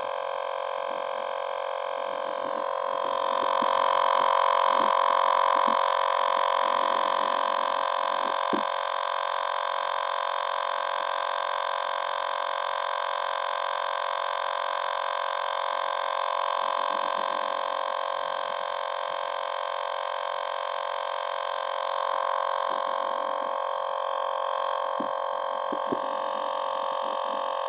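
A novelty fart toy's speaker gives out one steady electronic buzzing tone with many overtones, without stopping, as the toy sounds on by itself. The tone swells a little louder a few seconds in, with brief low rumbles and taps underneath at times.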